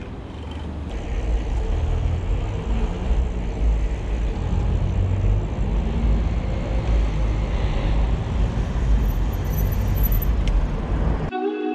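Rushing, buffeting noise from riding a bicycle through city traffic, with passing cars. It stops abruptly near the end, where guitar music starts.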